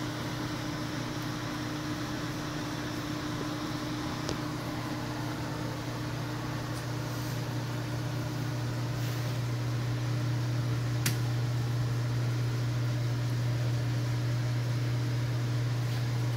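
Lincoln 1132 conveyor pizza oven running: a steady hum of its blower fan and motor, with a couple of faint ticks, one about four seconds in and a sharper one about eleven seconds in.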